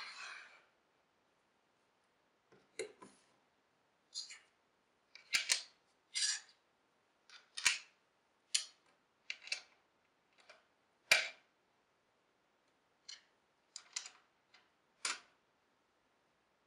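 Hand-fitting of a featherboard jig on a mini table saw's aluminium table: a short scrape as a bar slides into the T-track slot, then about twenty sharp, irregularly spaced clicks and clacks of bolts, washers and wing nuts against plywood and metal.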